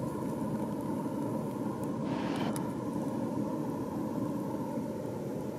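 GO Transit commuter train running along the track, heard inside a passenger coach as a steady rumble with a constant hum. A brief hiss comes about two seconds in.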